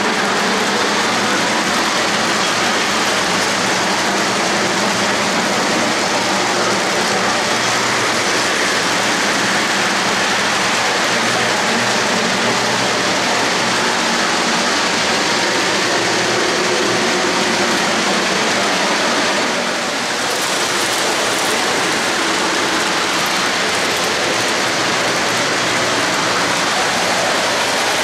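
O-gauge three-rail model freight trains rolling past close by: a steady dense clatter and hiss of metal wheels on the rails, dipping slightly about twenty seconds in.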